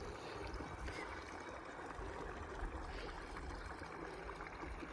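Water flowing steadily, like a small stream running, with a low rumble underneath.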